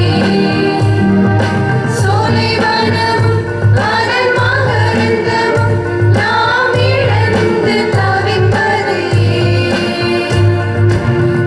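Song with singing voices over instrumental accompaniment, with a steady pulsing bass throughout.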